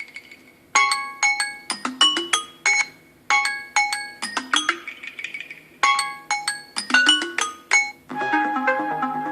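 A preloaded Samsung Galaxy Fold 4 ringtone playing from the phone's speaker: a short phrase of quick chiming notes, repeating about every two and a half seconds. About eight seconds in it switches to a different, denser electronic ringtone.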